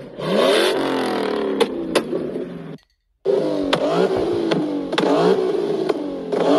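Car engines being revved hard, the revs rising and falling over and over, with sharp exhaust pops and cracks as the throttle closes. The sound breaks off for a moment about three seconds in, and then a Nissan 370Z's V6 revs and pops the same way.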